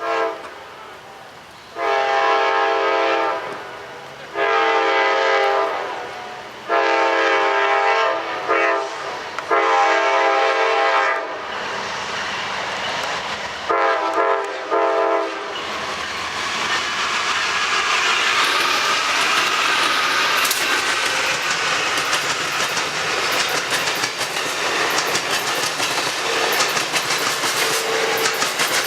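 Amtrak passenger train led by GE P42DC diesel locomotives sounding its multi-chime air horn in a playful series. There are five long blasts, each about one and a half to two seconds, then a short broken pair. From about 16 seconds in, the train passes close by with a loud rush and the clickety-clack of wheels over rail joints.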